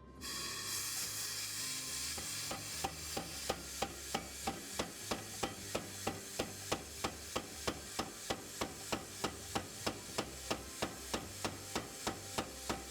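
Power hammer running, then striking hot W2 steel in a steady rhythm of about three blows a second, starting a couple of seconds in: the bar is being widened into a kitchen knife blade.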